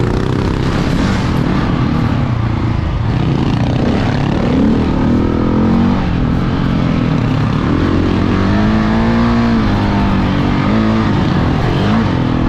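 Single-cylinder four-stroke motorcycle engine being ridden, its revs rising and falling again and again with the throttle.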